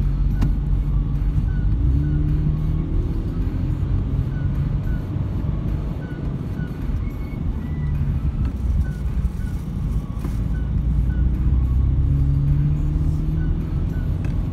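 Car engine and tyre noise heard from inside the cabin while driving, a steady low rumble. The engine note rises twice, about two seconds in and again near the end, as the car accelerates.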